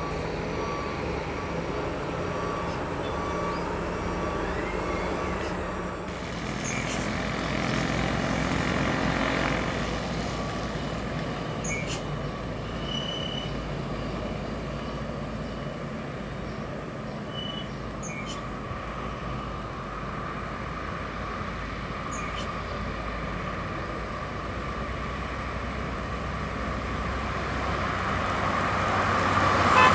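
Highway traffic with buses and trucks driving past, engines and tyres running steadily. One vehicle passes loudly about a third of the way in, and near the end an approaching bus grows steadily louder.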